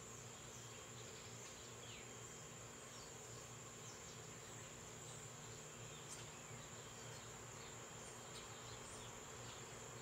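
Faint, steady high-pitched insect trilling, with scattered short bird chirps over it.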